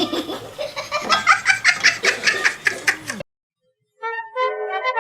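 Hard laughing in quick repeated bursts that cuts off abruptly about three seconds in. After a short silence, a brass-like tune starts near the end.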